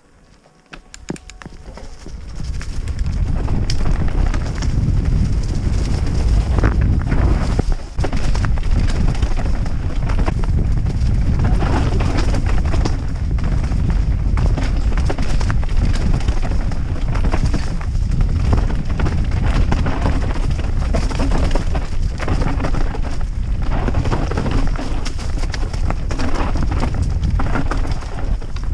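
Wind buffeting the action camera's microphone and the rattle of a YT Capra enduro mountain bike riding fast down a rocky trail. It builds up about two seconds in to a steady, loud rush, with frequent knocks as the wheels hit rocks.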